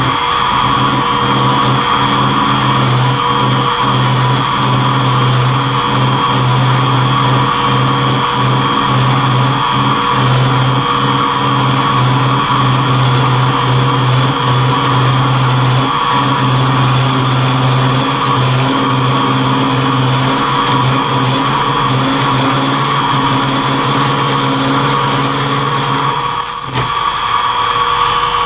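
A mini mill's 3/8-inch end mill cutting Delrin plastic in a full-width, 3/8-inch-deep pass at low spindle speed: a steady machining drone and whine, chattering a little. Near the end the low cutting drone stops and a high tone falls, as the cutter clears the end of the block and the spindle keeps running.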